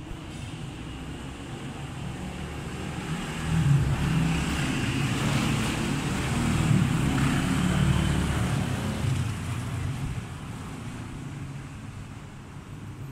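A motor vehicle passing by: its engine rumble and road hiss swell up about three seconds in, hold for several seconds, then fade away.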